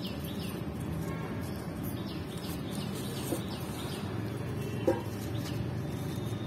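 A bird calling in a quick series of short falling chirps, two or three a second, that stops about four seconds in, over a steady low outdoor hum. One brief sharp sound comes near the end.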